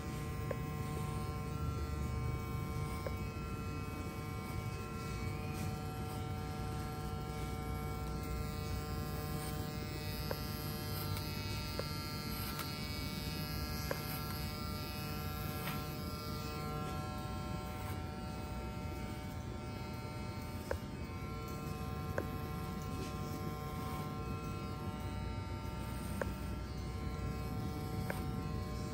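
Electric hair clippers running steadily during a fade haircut, a constant motor buzz with a few faint clicks.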